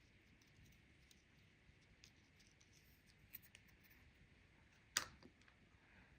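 Near silence with a few faint taps while small paper pieces are handled and glued down, and one sharp click about five seconds in.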